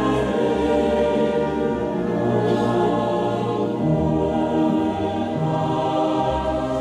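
A large crowd of schoolchildren and adults singing together slowly, like a choir, with long held notes.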